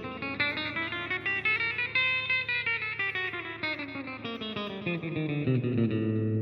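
A guitar played in quick single notes: a run that climbs in pitch for about two seconds, comes back down, and settles on held notes near the end. It is played to show an odd noise on the 2nd and 3rd strings from the 12th fret up, which the player says appeared after setting the action and tension themselves.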